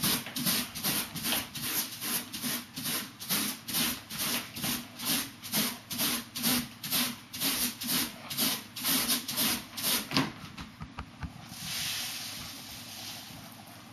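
Rubber balloon rubbed quickly back and forth on a child's hair, a rhythmic swishing of about two to three strokes a second that builds up static charge on the balloon. The strokes stop about ten seconds in, and a soft hiss follows.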